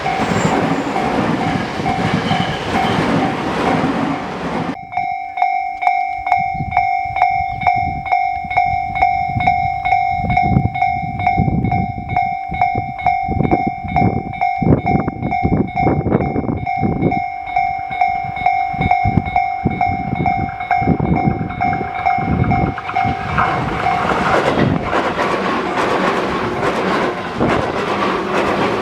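Japanese railway level-crossing warning bell ringing steadily while a Tobu Tojo Line train passes over the crossing, its wheels clattering over the rail joints in a running rhythm. The first few seconds are a louder rushing noise of the passing train. The bell stops about 24 seconds in and the rushing returns.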